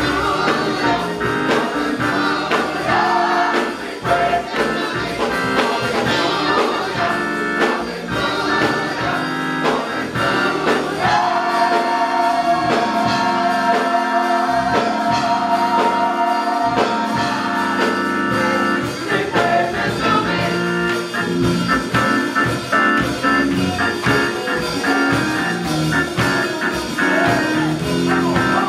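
Gospel choir singing with instrumental accompaniment, holding a long chord in the middle.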